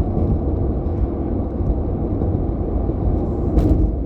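A steady low rumble, like vehicle or road noise, with a brief faint click about three and a half seconds in.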